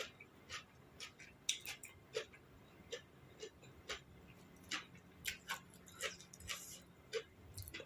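Close-up eating sounds: a person chewing crunchy food with sharp crisp clicks and wet mouth noises, about two a second at an irregular pace.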